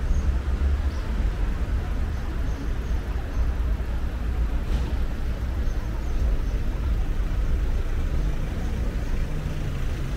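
City street traffic: a steady low rumble of cars and engines passing.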